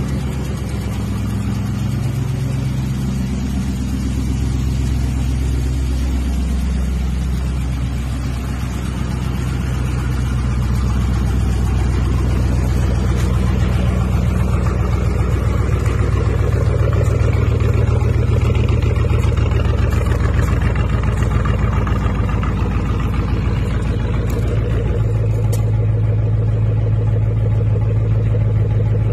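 Chevrolet 'cat-eye' pickup's engine and exhaust idling with a steady deep note, getting a little louder after about ten seconds.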